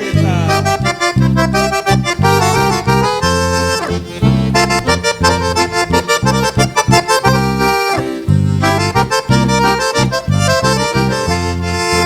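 Accordion-led instrumental introduction to a sertanejo song, played by a band over a steady, pulsing bass beat.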